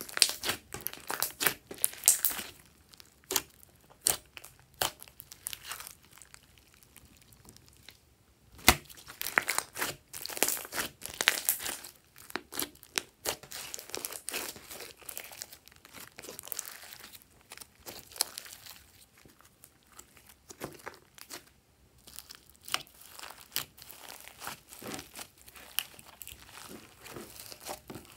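Hands squeezing and stretching glossy slime, giving a dense run of sticky clicks, crackles and pops that come in clusters with brief quieter pauses.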